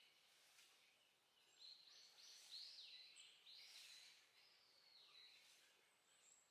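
Faint swishes of a long-handled broom sweeping bare earth, a stroke roughly every half second to second, starting about a second and a half in.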